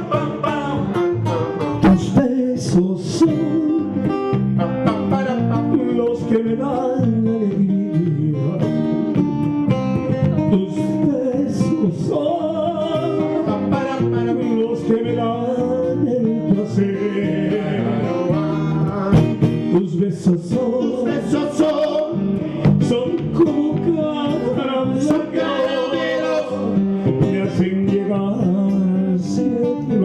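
Live acoustic Latin song: a sunburst acoustic guitar and an electric bass guitar playing, with a man singing into a handheld microphone.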